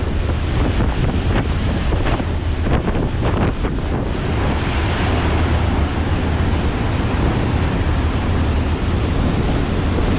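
Wind buffeting the microphone over a loud, steady rush like sea water, with a deep rumble underneath. It comes in uneven gusts for the first few seconds, then evens out.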